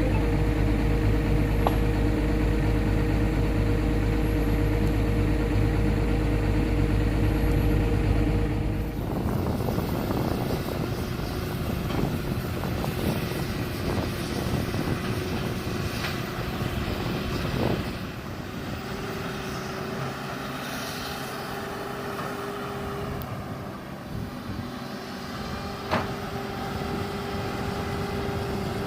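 Hydraulic excavator's diesel engine running steadily under load. About nine seconds in the sound changes abruptly, becoming quieter and rougher, and a steady whine comes in later.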